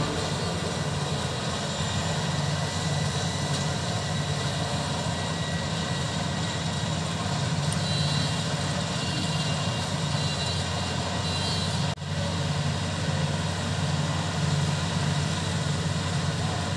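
Maxxi Bimo 102 combine harvester running steadily: an even engine hum with machinery noise, broken by a momentary drop about three-quarters of the way through.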